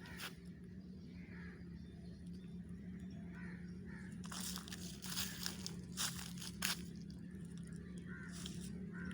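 Footsteps crunching through dry leaf litter, several rough steps in the second half, over a steady low hum.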